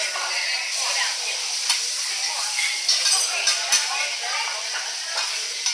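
Food sizzling on a hot teppanyaki griddle, a steady frying hiss, with a few sharp clacks of metal utensils on the plate and people talking.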